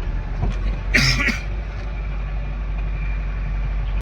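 Vehicle engine running with a steady low rumble, with a short sharp noise about a second in.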